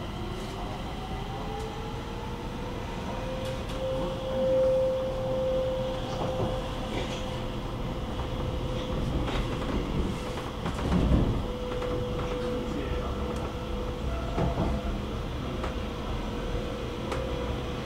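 Stockholm metro train running through a tunnel, heard from inside the car: steady wheel-on-rail rumble under a held electric motor whine, with a louder rush about eleven seconds in.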